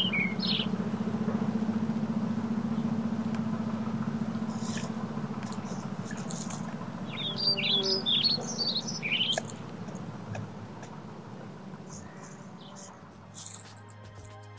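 Birds chirping in two runs of quick high notes, one just after the start and one about halfway through, over a steady low hum that slowly fades. Music comes in near the end.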